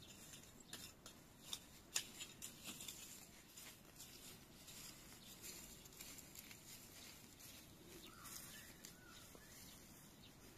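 Faint scratching and crackling of garden soil being worked by gloved hands and a small hand tool: a run of soft scrapes and clicks, the sharpest about two seconds in.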